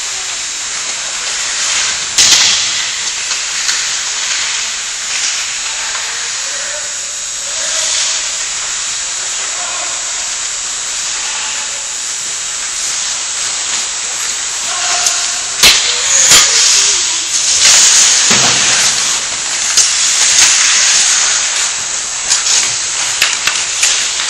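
Ice hockey play: a steady hiss of skate blades on the ice, louder scraping surges in the second half as skaters come close, and a few sharp clacks of hockey sticks and puck, about 2 s in and twice more later on.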